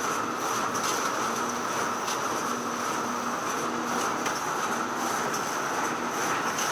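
Photocopier running steadily, a continuous mechanical whir with a high steady tone and faint, irregular clicks.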